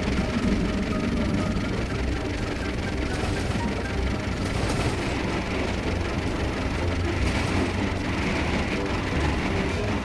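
Train running fast on the rails: a steady, loud rumble of wheels and running gear.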